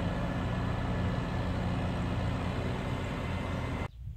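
Tractor engine running steadily with an even low hum in a flooded paddy field; the sound cuts off abruptly about four seconds in.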